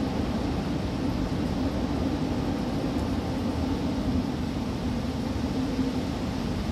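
Typhoon wind blowing steadily: a dense, unbroken low rushing noise with no gusts or pauses.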